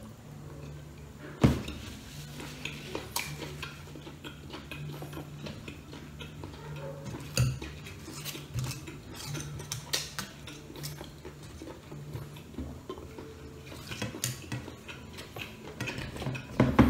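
Tableware clinking and knocking during a meal: dishes, a metal tray of skewers and a glass bottle handled on a table. A sharp knock comes about a second and a half in, and a quick run of clicks near the end, over a steady low hum.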